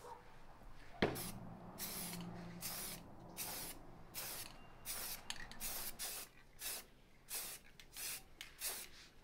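Aerosol spray paint can sprayed in about a dozen short hissing bursts, roughly two a second, after a sharp click about a second in.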